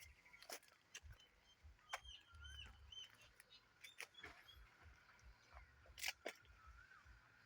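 Faint outdoor quiet broken by a few sharp clicks, the loudest about six seconds in, and a scattering of short high chirps from birds a couple of seconds in.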